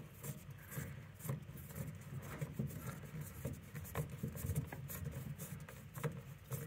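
Plastic cap used as a key, scraping and clicking faintly as it is turned by hand on the heating-side valve of a boiler's integral filling loop, closing the valve after topping up the pressure.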